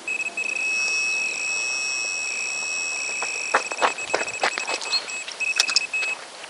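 Electronic carp bite alarm sounding an almost unbroken high tone for about six seconds, the sign of a fish running with the line. A string of sharp clicks comes over the second half, against a steady background hiss.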